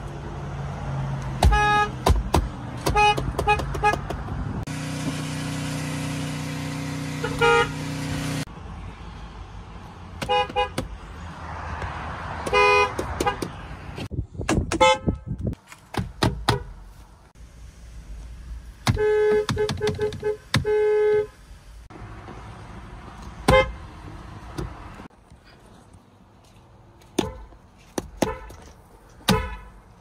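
Horns of one car after another, honked from the driver's seat of a Ford and then several Mazdas: mostly quick taps and double honks, with a longer blast about two-thirds of the way through. Each car's horn has its own pitch, and the cuts from car to car come abruptly.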